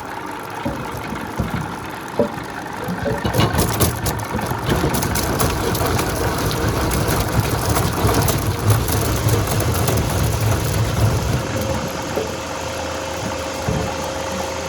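Log veneer peeling machine running with a steady low mechanical drone, with sharp crackling of wood being peeled and splintering about three to five seconds in. The low drone eases off about twelve seconds in while the machine keeps running.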